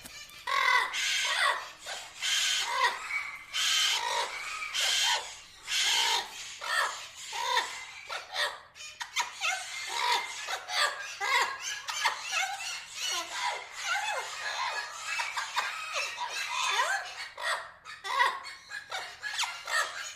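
Parrots squawking and chattering in a dense run of short calls, one after another with hardly a break.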